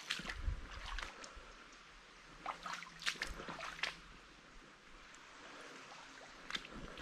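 Footsteps rustling and crackling through dry leaf litter and undergrowth, in irregular clusters with short pauses between them.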